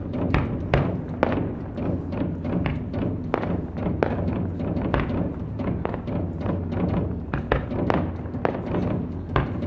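Japanese taiko drums played live, sharp deep strikes about two to three a second at uneven spacing over a steady low rumble.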